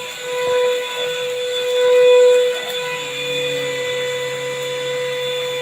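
Akitas V8 cordless stick vacuum cleaner running with a steady motor whine. It grows louder for a moment about half a second in and again around two seconds in.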